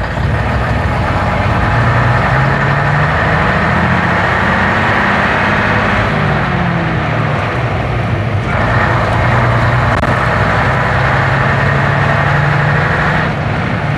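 Leyland diesel engine of a double-decker bus heard from inside the saloon while driving. The engine note shifts in steps as it pulls, gets louder about eight and a half seconds in, and eases off shortly before the end.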